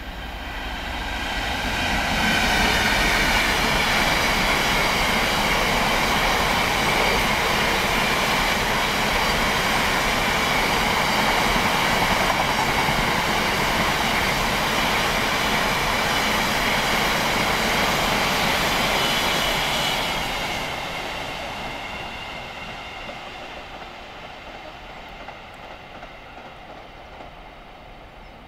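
A Class 66 diesel locomotive, its two-stroke V12 engine running, passes at the head of a long train of biomass hopper wagons. The sound swells over the first two seconds, holds as a steady noise of wagon wheels on the rails until about twenty seconds in, then fades away as the train recedes.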